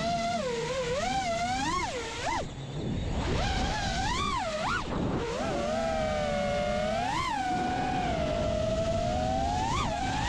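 FPV freestyle quadcopter's brushless motors whining, the pitch swooping up and down again and again with throttle punches, over a rush of prop wash and wind.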